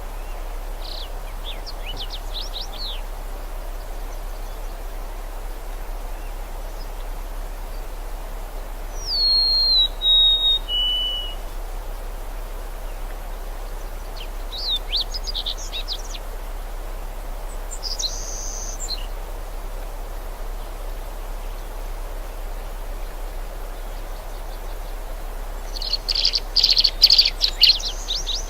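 Birds calling in short bursts: quick chirping trills, a clear whistle that steps down in pitch, and a louder flurry of chirps near the end, over a steady background hiss.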